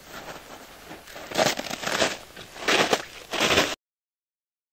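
Footsteps of people walking over rough ground, a few loud uneven bursts of steps, cutting off suddenly to silence about three-quarters of the way through.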